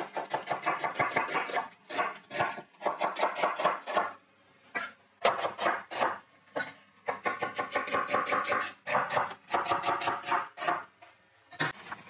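Chef's knife slicing an onion into thin strips on a wooden cutting board: quick runs of crisp cuts, each stroke knocking on the board, about four or five a second, broken by short pauses.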